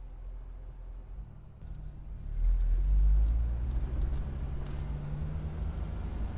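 Road vehicle engine running with a low rumble; about a second and a half in its note climbs a little and grows louder as it pulls away.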